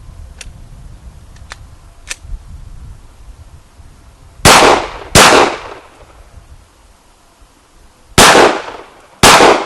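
Glock 19 Gen 4 9mm pistol fired four times: a quick pair of shots, then about three seconds later two more a second apart, each with a short echo. A few faint clicks come before the first shot.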